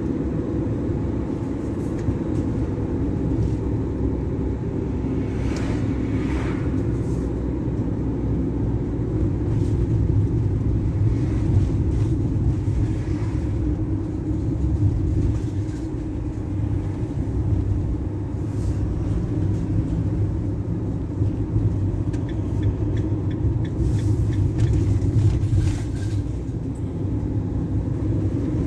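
A car driving along a paved road: a steady low rumble of engine and tyre noise that swells and eases slightly with speed.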